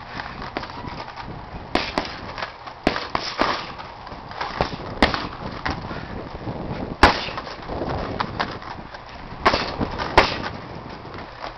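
Heavy punching bag being struck with boxing-gloved punches and kicks: irregular sharp thuds, sometimes in quick pairs, with the hardest hits about seven and ten seconds in.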